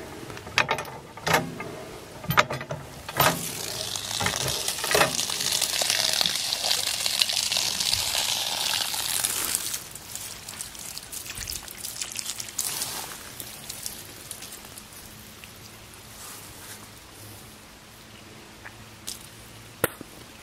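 A few sharp clanks, then well water gushing and pouring from about three seconds in for several seconds, easing off and fading out well before the end.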